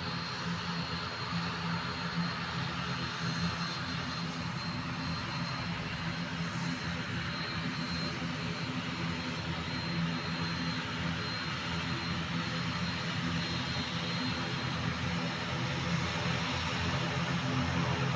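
ATR 72-600 turboprop's Pratt & Whitney PW127M engines running steadily: a high, thin whine over a low drone and a rush of air, growing a little louder towards the end.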